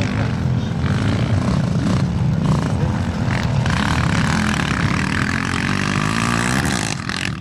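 Engines of small racing vehicles running on a race course, their pitch shifting as they rev and go by. A hiss of added noise comes in about three and a half seconds in and drops away shortly before the end.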